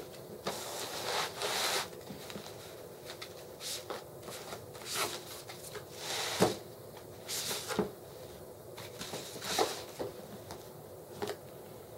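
Cardboard laptop box being opened and handled: scraping, sliding and rustling of the packaging, with several knocks, the sharpest about six and a half seconds in.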